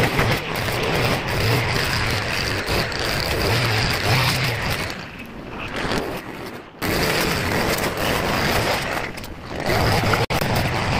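Petrol brush cutter running at high throttle while cutting grass and weeds. Its engine eases off briefly twice, about five seconds in and again about nine seconds in.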